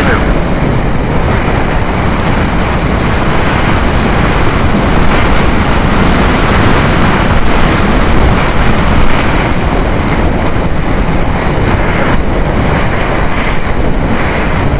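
Strong wind and airflow rushing over the onboard camera's microphone of an RC plane gliding with its motor cut off; a loud, steady rush with no motor tone.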